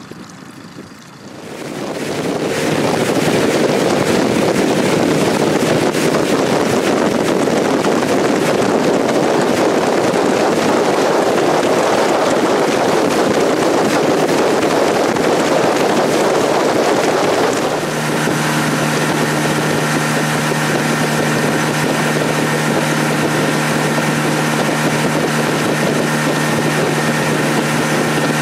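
Small fishing boat's outboard motor speeding up about two seconds in, then running steadily under way with a loud rush of wind and water. About eighteen seconds in the rush eases a little and the engine's steady hum comes through.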